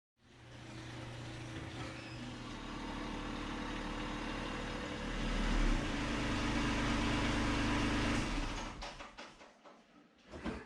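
An engine running steadily, rising briefly about five seconds in, then shutting off a little after eight seconds, followed by a few light knocks.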